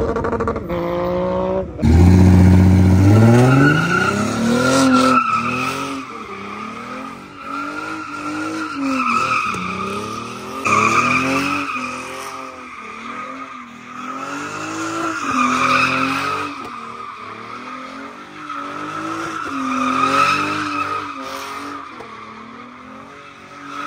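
Toyota Mark X's V6 drifting in circles: the engine revs rise and fall in waves about every two seconds, and the rear tyres squeal and skid with each wave. A sharp rev climbs about two seconds in, before the steady drifting pattern sets in.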